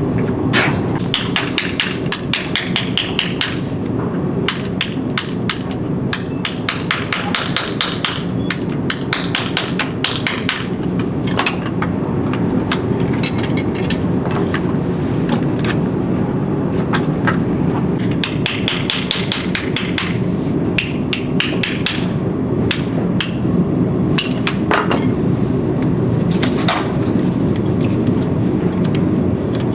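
Farrier's hammer striking steel in quick runs of about four or five blows a second, with a high metallic ring, and single knocks between the runs, over a steady low rumble.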